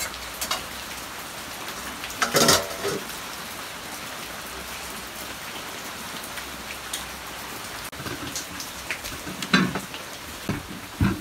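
Steady rain hissing on the roof, with a clatter of pots about two seconds in and a few smaller knocks near the end as a pan is handled at the hearth.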